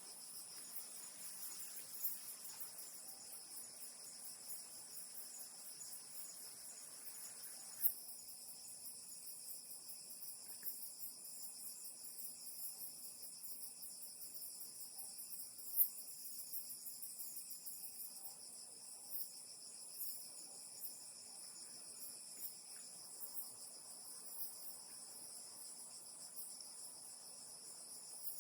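Steady chorus of night insects, several high-pitched songs layered together, with a lower hiss dropping out about 8 seconds in. A few sharp clicks stand out, the loudest about 8 and 16 seconds in.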